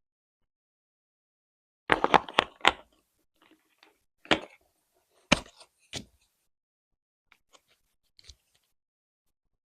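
Small plastic slime jars handled and set down on a wooden surface, making sharp clicks and knocks. A quick cluster of four or five comes about two seconds in, then single knocks about four, five and six seconds in, and a few faint ticks near the end.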